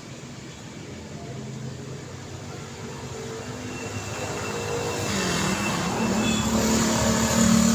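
Street traffic with a motor vehicle approaching, its engine growing steadily louder and passing close near the end.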